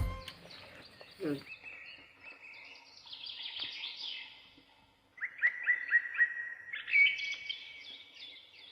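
Birds chirping: a quick run of about six repeated notes about five seconds in, then higher, faster calls near the end.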